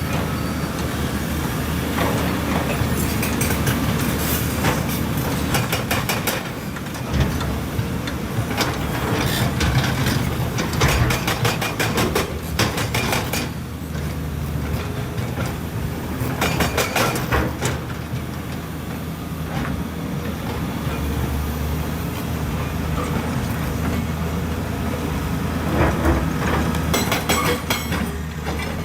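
Hydraulic excavator at work: its diesel engine running steadily under load, with several bursts of metallic clattering and rattling.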